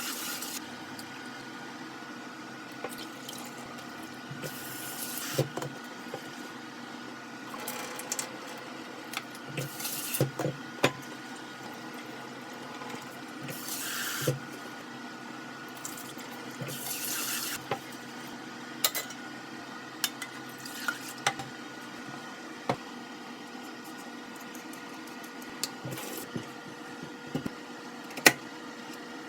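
Kitchen sink tap run in several short bursts of about a second each, with scattered clicks and knocks of dishes and utensils in between, over a faint steady hum.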